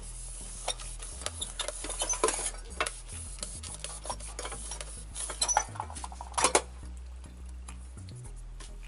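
Metal rubbing and scraping with irregular clinks as a rice cooker's inner pot is worked against its heater plate. The scrapes come thickest about two seconds in and again past the middle, over a low hum.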